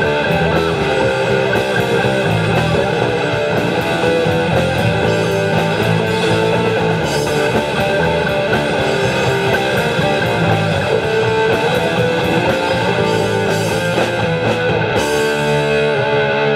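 Live rock band playing an instrumental passage: electric guitar over bass guitar and drum kit. The cymbals stop near the end.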